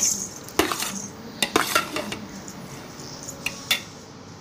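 Metal ladle stirring fried rice in a large metal pot: irregular clinks and scrapes of the ladle against the pot, tailing off toward the end.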